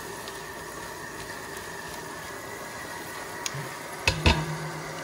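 Diced leek and onion sizzling gently in butter and oil in a cast-iron casserole, a steady soft frying hiss. About four seconds in there are a few sharp knocks.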